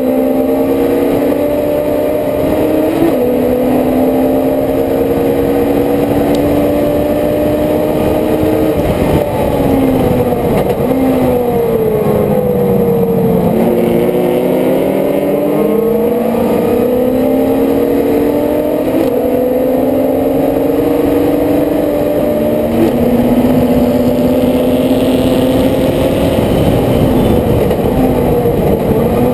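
Race car engine heard from on board at racing speed. Its note climbs under acceleration, falls away for several seconds as the car slows about ten seconds in, then climbs again, with small steps in pitch along the way.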